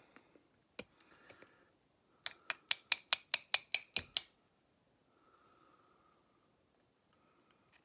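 A steel screwdriver rapping against a chainsaw carburetor body: about a dozen quick, sharp metallic taps, roughly six a second, about two seconds in, after a few lighter clicks and scrapes. The tapping is meant to jar a small governor spring out of its bore.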